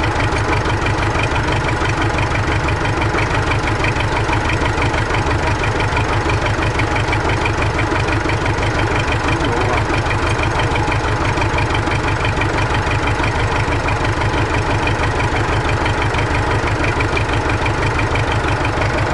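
MTZ-82 tractor's D-240 four-cylinder diesel idling steadily with a fast, even beat, just started after its piston group was replaced.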